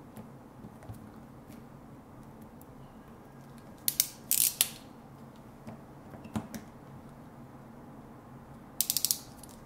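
Ratchet of a hand ring-sleeve crimping tool clicking: two short bursts of clicks about four seconds in, then a quick run of ratchet clicks near the end as the handles are squeezed to crimp a small ring sleeve onto the wire ends.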